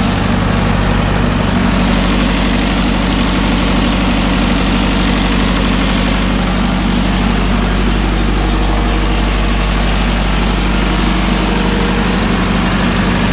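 Zetor 7711 tractor's diesel engine idling steadily, warmed up to a stable running temperature.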